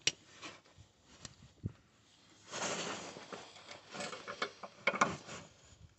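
Metal clicks and knocks of a socket, long extension and ratchet being handled and fitted onto a driveshaft flange bolt, with a short stretch of rasping noise about midway.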